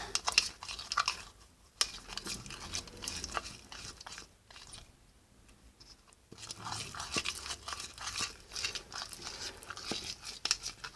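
A spoon stirring sticky, half-set slime of coloured glue and borax water: irregular wet squelching and crackling, with a quieter stretch in the middle.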